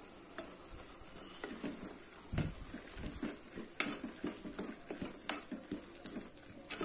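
Tomato and onion masala frying in an aluminium pressure cooker, stirred with a wooden spatula. A faint sizzle runs under it, and from about a second and a half in the spatula scrapes and knocks against the pan about twice a second.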